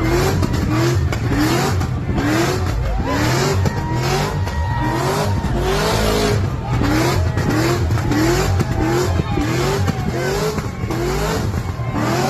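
Car engine revving over and over, rising in pitch about twice a second, with tyre squeal.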